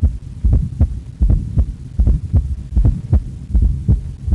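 Auscultation recording of a heart with a fourth heart sound (S4 gallop). Low thuds come in a repeating three-beat gallop, S4 and S1 close together and then S2, about once every 0.8 s. S4 is the sign of a stiff, non-compliant ventricle, as in hypertrophy of the left ventricle.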